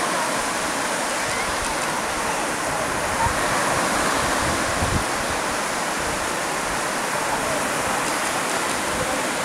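Small waves breaking and washing onto a sandy beach: a steady rush of surf, with uneven low gusts of wind on the microphone.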